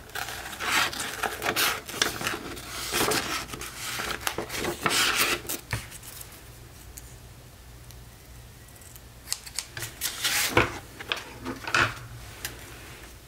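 Small scissors snipping through printed paper in quick, repeated cuts for the first six seconds or so. After that the sound goes quieter, with paper rustling and a couple of sharp clicks near the end.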